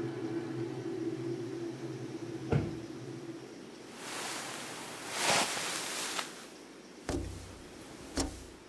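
Foley of a person getting up in bed and reaching a window: a low drone fades out, a soft thump, a swelling rustle of bedding, then two sharp knocks of hands against a window pane near the end.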